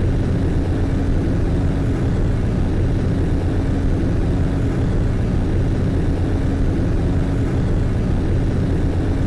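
Car driving at highway speed, heard from inside the cabin: a loud, steady drone of engine hum with road and wind noise.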